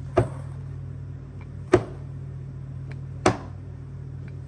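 Hand J roller pressed and rolled over a wooden workpiece glued to a CNC wasteboard, giving three sharp clicks or knocks about a second and a half apart, over a steady low hum.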